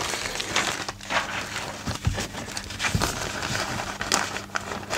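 Paper rustling and crinkling in irregular strokes as sheets are handled on a table: a stiff, wrinkled homemade paper made from a napkin soaked in watered-down PVA glue, and a square of patterned paper laid on it.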